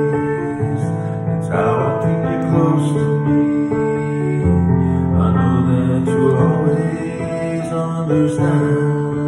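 Instrumental break in a slow, tender ballad: held chords that change every couple of seconds, with no sung words.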